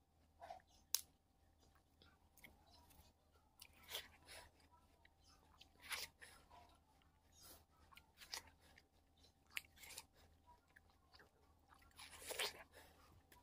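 Biting into and chewing frozen yellow-fleshed watermelon: scattered crunches and chewing at irregular intervals, with a sharp bite about a second in and the loudest crunching near the end.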